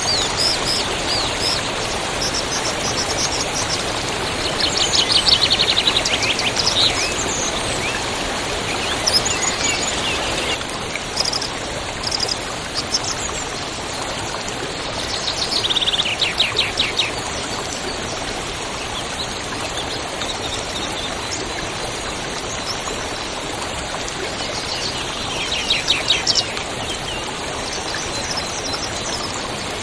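River water rushing steadily, with songbirds calling over it; a fast trilled song comes three times, about 5, 16 and 26 seconds in.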